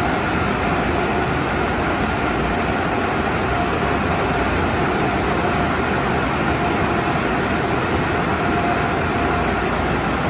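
PECO car-wash dryer blowers running overhead: a steady rush of air with a faint whine, heard from inside the car as it passes beneath them.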